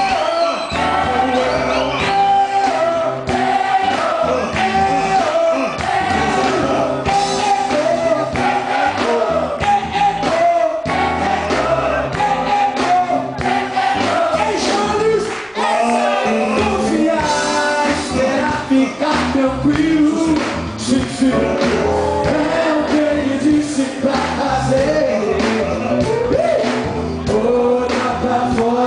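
Live gospel band: male vocalists singing into microphones, with backing singers, over a drum kit and electric guitar.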